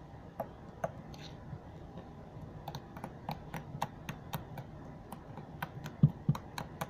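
Slime being poked and pressed with fingers, giving off a string of sharp little clicks and pops of trapped air, sparse at first and coming faster from about halfway through.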